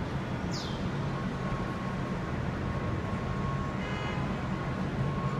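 Steady low hum and rumble of a docked cruise ship's machinery, with a faint thin steady tone joining about a second in and a brief high falling whistle about half a second in.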